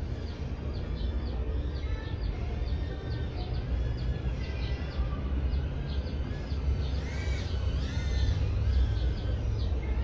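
Small birds chirping over and over, with a steady low rumble underneath. Briefly, about seven seconds in, several arching tones rise and fall together.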